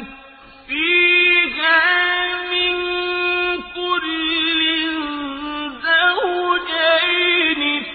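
A single voice chanting Quranic Arabic in a slow, melodic recitation style, drawing out long held notes with ornamented turns in pitch.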